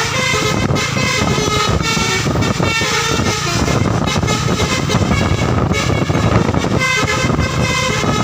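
Basuri V3 telolet multi-tone bus horn playing a melody, its notes changing every fraction of a second, over a steady low rumble.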